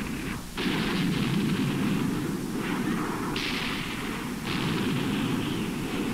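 Battle sound effects: dense, continuous gunfire and shellfire, with a brief dip about half a second in.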